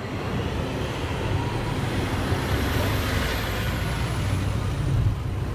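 Chicago Transit Authority city bus passing close by, its engine rumbling steadily and a high whine rising and then falling as it goes past.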